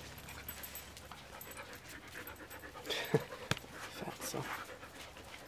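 Dog panting close by, with a couple of sharp clicks a little after three seconds in.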